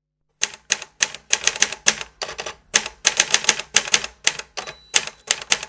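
Typewriter keys clacking in quick, irregular runs of strikes, starting about half a second in.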